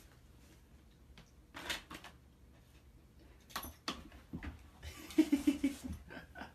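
A dog pushing through a pet door flap: a couple of sharp knocks of the flap about four seconds in, then a short run of low pulsing sounds from the dog.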